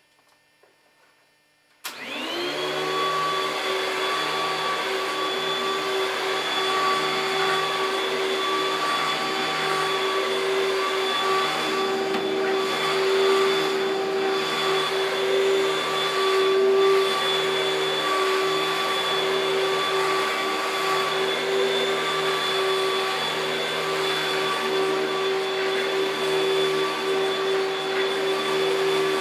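Panasonic Jet-Flo MC-6217 upright vacuum cleaner switched on about two seconds in; its motor spins up within a moment and then runs steadily.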